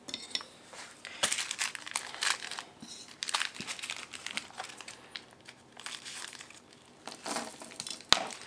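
A small clear plastic bag of screws being handled and crinkled, in irregular crackly rustles. There is one sharp click near the end.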